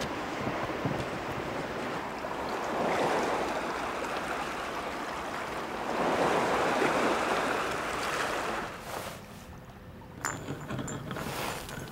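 Sea waves washing and rushing against rocks, swelling twice. Near the end they drop away suddenly to a quiet room with a few faint clicks.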